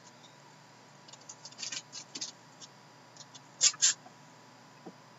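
Sealed trading-card boxes being handled: a scatter of short crinkles and clicks, with two louder ones close together about two-thirds of the way through.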